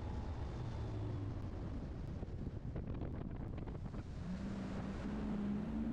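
Bass boat outboard motor running at speed, with heavy wind buffeting the microphone. There is a short run of knocks around the middle, and a clearer engine tone comes in about four seconds in and climbs slightly in pitch.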